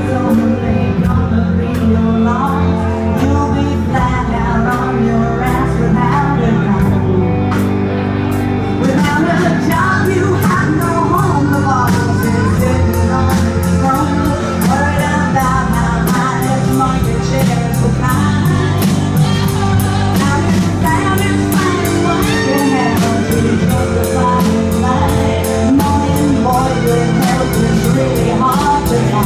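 Punk rock band playing live and loud: electric guitar, bass and drums, with a woman singing over them. About nine seconds in the drummer's cymbals take up a steady fast beat.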